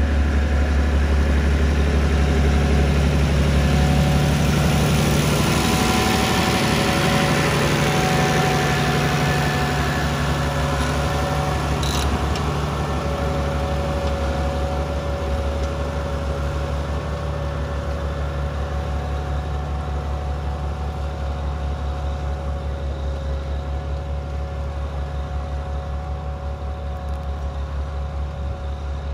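Massey Ferguson tractor's diesel engine running steadily under load while pulling a disc plough. It is loudest in the first several seconds and slowly fades, with a single sharp click about twelve seconds in.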